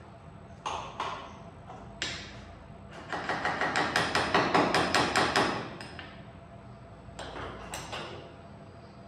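Knocking while boards are fixed down on a CNC router's bed: a few single knocks, then a fast run of hammer-like blows lasting about two and a half seconds, and two more knocks near the end.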